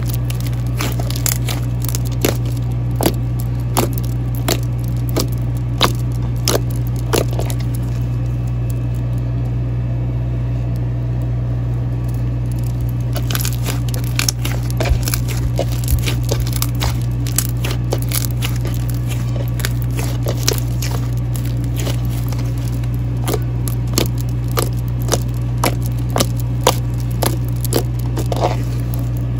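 White glittery snow slime being squeezed, stretched and poked by hand, giving many sharp crackling clicks and pops, irregular and denser near the end. A steady low hum runs underneath.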